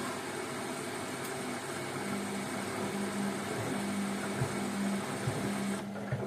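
Hotpoint Ariston washing machine running mid-wash: a steady mechanical hum and hiss. A low motor drone comes in about two seconds in, with a few soft knocks.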